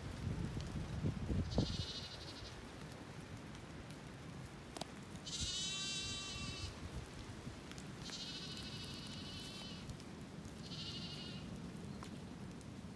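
Zwartbles lambs bleating: four high calls, the longest about a second and a half, over steady rain and wind noise. Low rumbling knocks in the first two seconds.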